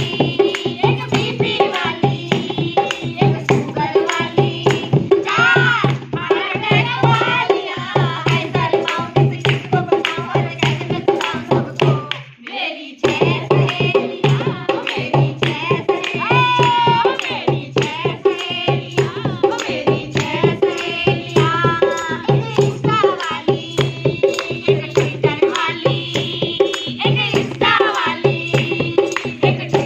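Women singing a folk song to a dholak drum beating a steady, fast rhythm. There is a brief break in the sound about twelve seconds in.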